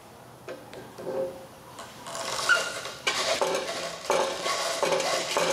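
A Ford car AC compressor being turned over by hand, giving a run of scraping, clattering metallic strokes a few times a second from about two seconds in. The compressor is still stiff to turn and warm.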